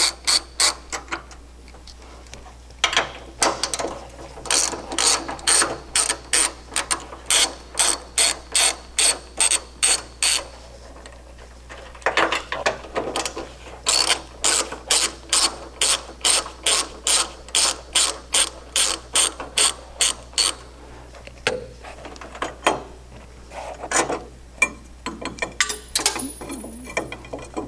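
Ratchet wrench clicking in quick, even strokes, about two to three a second, as the shock cap nuts are backed off. The runs break off briefly twice and grow sparser near the end.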